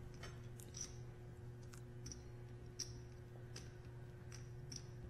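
Clay poker chips clicking together as a player handles a stack of them at the table: a dozen or so faint, sharp clicks at uneven intervals, over a steady low hum.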